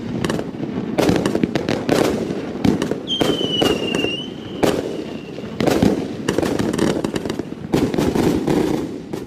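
Brocade War 88-shot firework cake firing, its titanium salutes going off as loud, sharp bangs in quick clusters, with a brief high whistle about three seconds in.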